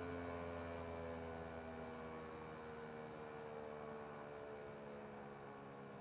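ASC T-128 outdoor warning siren winding down at the end of a curfew blast, its tone sliding slowly lower and fading.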